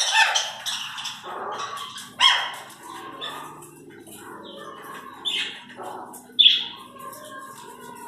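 Pet parrots, a Fischer's lovebird and an Indian ringneck parakeet, calling. A run of loud, sharp calls comes at the start, then single sudden squawks about two, five and six and a half seconds in.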